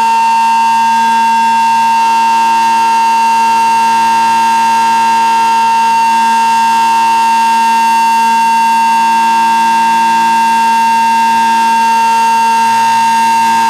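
B&M Model 20-AR-10 outdoor warning siren sounding very loud at full speed, holding one steady high tone with a rich set of overtones.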